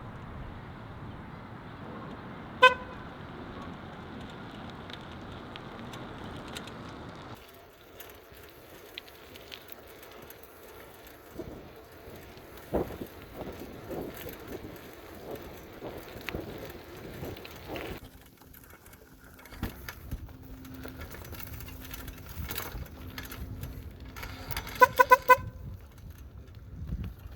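Electric car horn mounted on a bicycle gives one short beep, then a quick burst of about four beeps near the end, over steady background noise.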